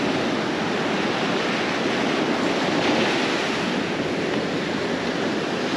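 Small surf breaking and washing up onto a sandy beach, a steady rush of water.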